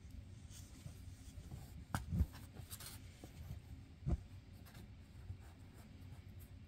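Kitten wrestling with an adult cat in a blanket-lined cardboard box: faint scratching and rustling of paws and claws on the blanket and cardboard. There are a couple of sharp knocks about two seconds in and one near four seconds.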